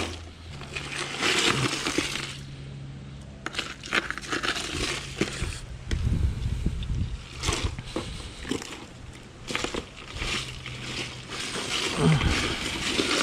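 Ice in a cooler crunching and clattering as whole sheepshead are lifted and shifted on it by hand: a run of irregular crunches and knocks.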